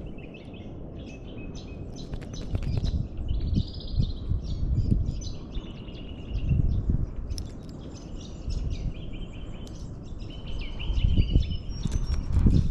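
Small birds chirping and trilling again and again over a low outdoor rumble that swells and fades every second or two.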